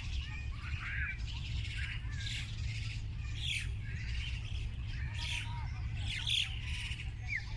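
Several birds chirping and calling over one another in many short, quick notes, over a steady low rumble.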